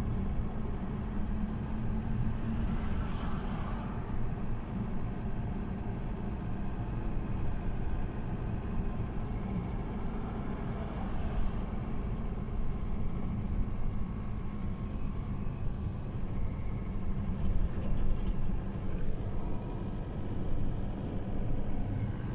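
Storm wind, a steady low rumble.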